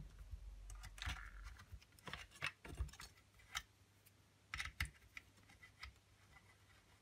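Small side screw and Allen key being handled and driven into an airsoft SCAR-L's upper receiver: faint, irregular small clicks and ticks, clustering about two and a half and four and a half seconds in.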